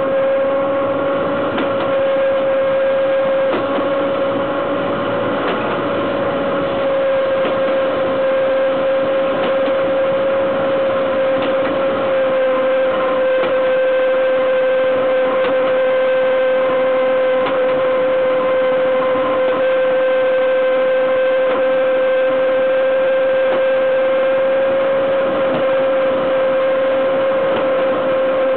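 Wheels and running gear of a BDZ class 43 electric locomotive rolling along the rails at steady speed: a loud, steady whine over the running noise of wheels on track, with a few faint clicks.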